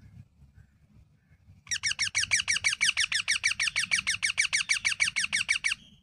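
Young parakeet calling in a rapid, even run of short notes, each falling in pitch, about eight a second, starting a little under two seconds in and lasting about four seconds. A faint low rumble runs underneath.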